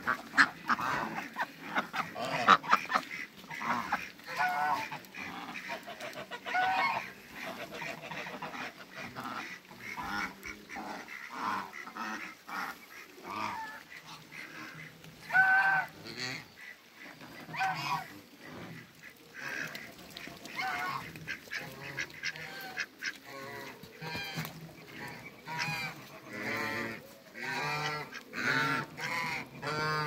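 African geese honking over and over, in short calls scattered throughout that come thicker near the end.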